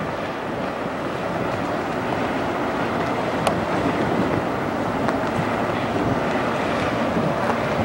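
Steady outdoor background noise: a constant rushing hiss with no distinct events, and a faint click about three and a half seconds in.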